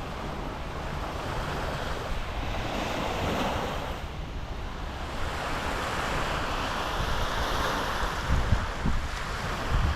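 Waves breaking and washing on the shore, with wind gusting across the microphone: a steady rushing sound with low rumbling buffets.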